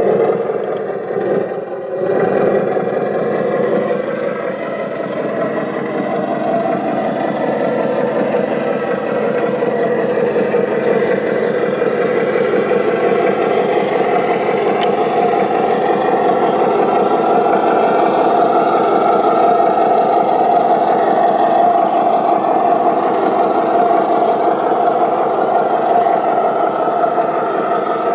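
A radio-controlled model construction vehicle running steadily under its motor, with a pitch that creeps a little higher about halfway through.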